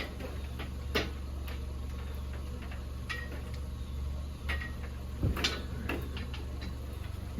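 Scattered light metallic clicks and clinks, with a louder knock about five seconds in, over a steady low hum.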